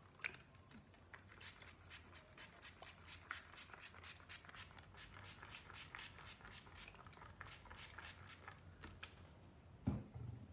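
Pump-top spritz bottle sprayed over and over onto hair: a quick series of short spritzes, about three or four a second. A soft thump near the end.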